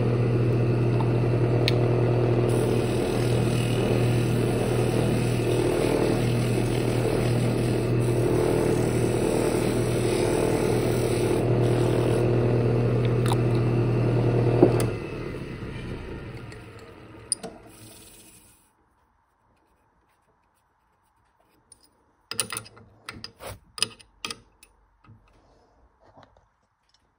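Wood lathe running with a steady motor hum while a wooden mug lid spins in the chuck. About 15 seconds in it is switched off and winds down over a few seconds. Near the end comes a short flurry of clicks and knocks as the chuck is handled.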